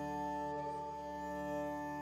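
Background music: a slow, held chord of sustained notes at an even level.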